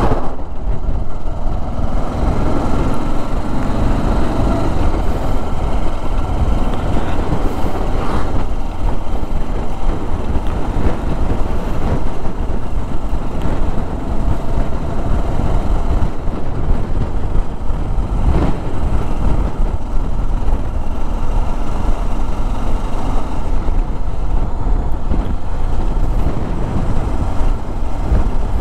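Motorcycle being ridden at low speed on a rough road, its engine running under a steady rumble of wind on the microphone. A passing truck's engine adds to the sound in the first few seconds.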